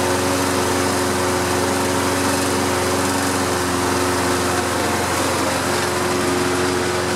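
Toro Recycler walk-behind lawn mower's single-cylinder engine running steadily at an even speed.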